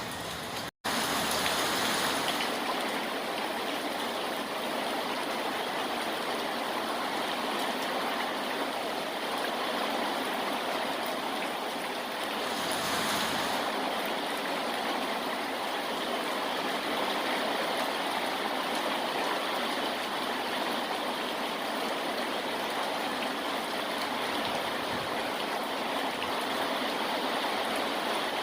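Steady rushing noise of heavy rain falling. It cuts out completely for a split second just under a second in, then returns slightly louder.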